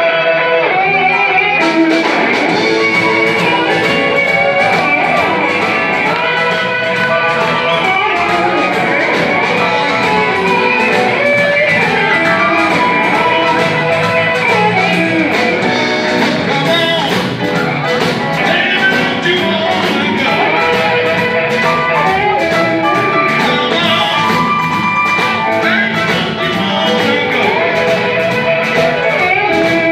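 Electric blues band playing live, with electric guitar to the fore over keyboard and bass; the drums come in about two seconds in and keep a steady beat.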